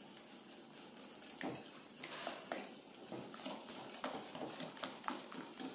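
Hand wire whisk beating eggs and sugar in a ceramic bowl: quick, uneven ticking and tapping of the wires against the bowl.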